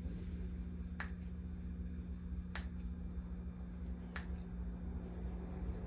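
Three sharp clicks, evenly spaced about a second and a half apart, over a steady low hum.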